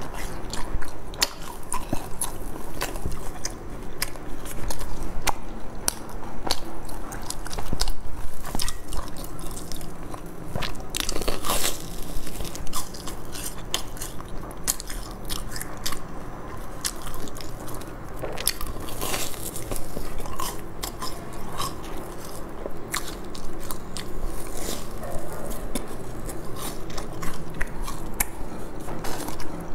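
Close-miked biting and chewing of a large fried sesame ball, its crisp sesame-coated crust crunching and crackling in many small sharp cracks.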